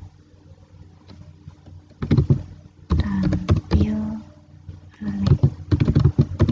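Computer keyboard being typed on, loud clusters of rapid key clicks starting about two seconds in, as letters are entered in a code editor. A short wavering pitched sound mixes in about three seconds in.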